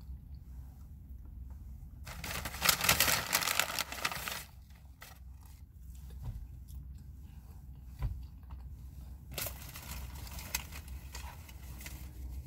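Paper fast-food bag rustling and crinkling as it is searched, loudest in a burst about two seconds in and again over the last few seconds, over a low steady hum.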